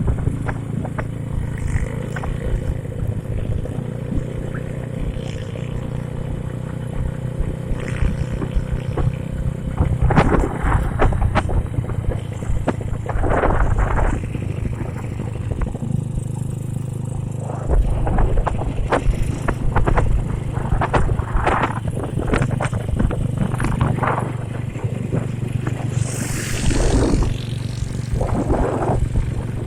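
Honda C70 motorcycle with a swapped-in Astrea Grand single-cylinder four-stroke engine running steadily while being ridden, with a low rumble of wind on the microphone and scattered short rattles.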